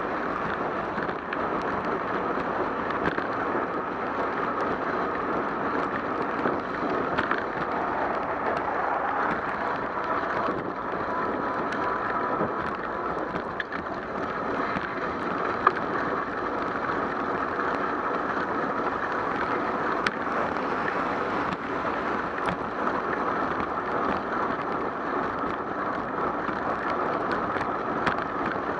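Steady rushing noise of a bicycle riding on a wet road in the rain, heard from a camera on the bike: tyre hiss on the wet pavement, wind on the microphone and car traffic alongside, with a few sharp ticks.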